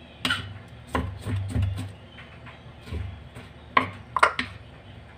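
Kitchen knife chopping tomatoes on a thick wooden chopping block: about seven irregular knocks of the blade striking the wood, each with a low thud.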